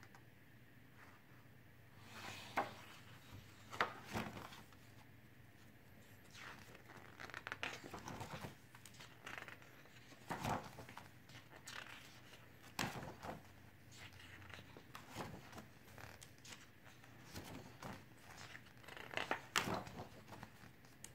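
Pages of a ring-bound photobook being turned by hand: paper rustling and sliding, with a few sharp taps scattered among it.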